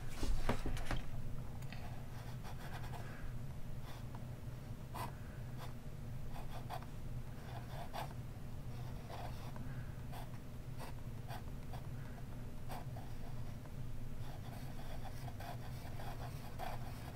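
Fude nib of a dip pen scratching across paper in short, irregular strokes as words are written, with a few louder strokes in the first second. A steady low hum runs underneath.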